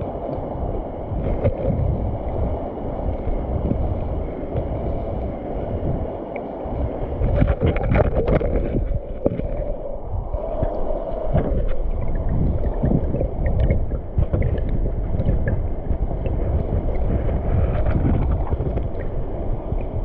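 Stream water flowing and gurgling over rocks, with wind rumbling on the microphone, and a louder stretch of sloshing about eight seconds in.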